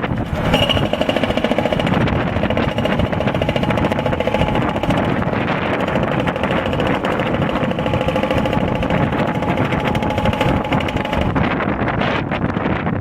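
Hydraulic breaker hammering concrete in a rapid, steady stream of blows, starting about half a second in and stopping a little before the end. Wind buffets the microphone throughout.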